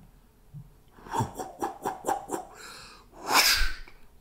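A person voicing comic-book sound effects with the mouth: a quick run of short clipped vocal sounds, then a breathy "whoosh" near the end.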